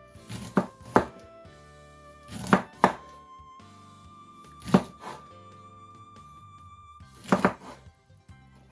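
Kitchen knife cutting a lemon on a chopping board: about seven sharp knocks at uneven spacing, over quiet background music.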